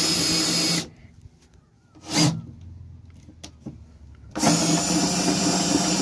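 Cordless drill in first gear, turning a 13 mm bolt head used as a makeshift Allen key to wind down the spare wheel winch under a Ford Transit Connect. It runs for under a second and stops, gives a short burst about two seconds in, then runs steadily again from about four and a half seconds.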